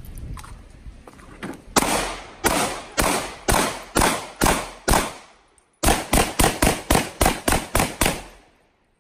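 Pistol gunfire. A string of about seven shots roughly half a second apart, then after a short pause a faster string of about a dozen shots. Each shot has a short echoing tail.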